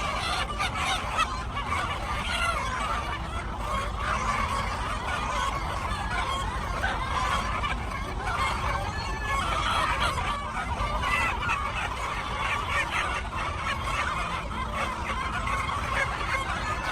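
A flock of chickens clucking and calling, many overlapping short calls without a break.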